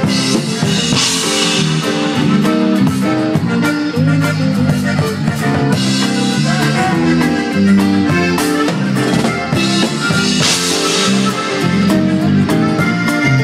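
Live Tejano band music played loud, heard close to the drum kit: a steady drum beat under accordion, guitar and bass, with cymbal crashes about a second in and again about ten seconds in.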